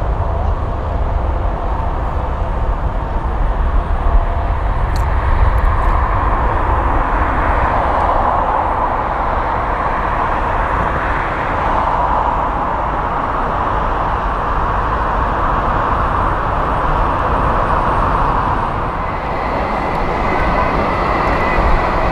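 Jet airliner engines running at low taxi power as widebody aircraft roll past: a steady, loud rumble and roar that swells a little and eases again. A faint steady whine joins it near the end.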